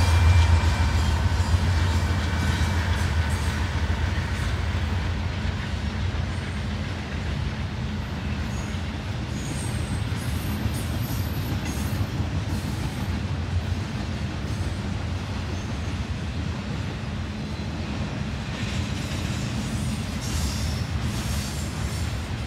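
Diesel freight train passing at speed. The locomotive's engine hum is loud at the start and fades within a few seconds, leaving the steady noise of double-stack intermodal cars rolling by on the rails.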